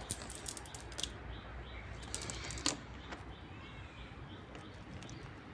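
Scattered small clicks and wet slaps from a cast net full of small fish being handled on wet mud, most of them in the first second and again about two and a half seconds in, with a few faint high chirps in the middle.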